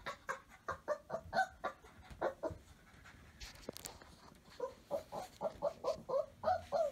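Clumber spaniel puppies squeaking in strings of short, high calls, several a second, pausing for about two seconds midway before starting up again.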